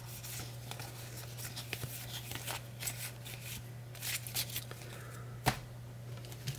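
Baseball trading cards being handled and slid against each other: soft scattered rustles and ticks, with one sharp click near the end, over a steady low hum.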